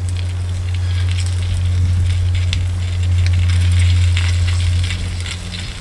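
Bacon sizzling and crackling in butter in a small titanium frying pan over a wood-burning stove, with many small pops throughout. A steady low hum lies under it.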